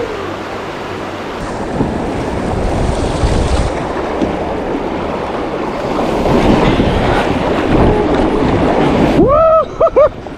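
Whitewater rapids rushing and splashing around an inflatable kayak, a steady loud wash of water noise. Near the end, a few short yelps from a person, each rising and falling in pitch.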